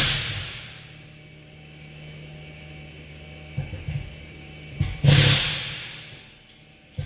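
Mercedes A250's rear electric park brake motor running with a steady hum, winding the caliper pistons back to the pad-fitting position. Two loud rushing noise bursts cut across it, one at the start and one about five seconds in, each fading over about a second.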